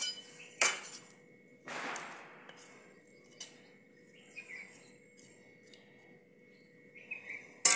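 Metal spatula and steel spoon clinking and scraping against a stainless-steel thali as khoya is spread and pressed flat in it: scattered light ticks, a short scrape about two seconds in, and a loud ringing clink near the end.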